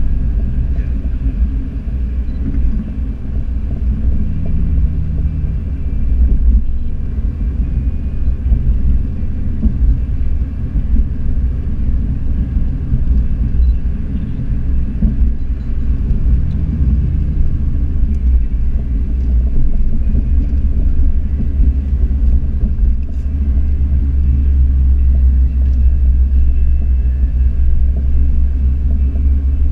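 A car's engine and road noise heard from inside the cabin while lapping a circuit: a steady, low rumbling drone whose engine note shifts a little now and then. It grows deeper and a little louder about two-thirds of the way through.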